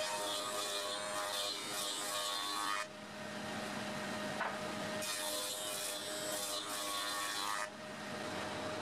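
Spindle moulder (wood shaper) cutting a hardwood board pushed along its fence. Two passes of about three seconds each, with the steady hum of the running machine between them.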